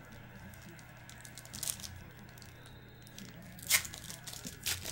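A trading-card pack wrapper being torn open and crinkled by hand: quiet handling at first, then sharp tearing and crackling from about three and a half seconds in.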